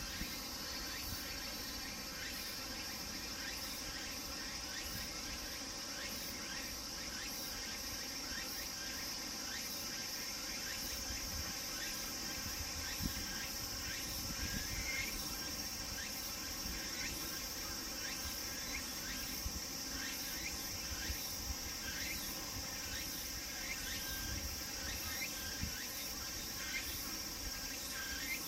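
Chorus of cicadas calling steadily, a continuous high-pitched drone with many short repeated chirps layered over it.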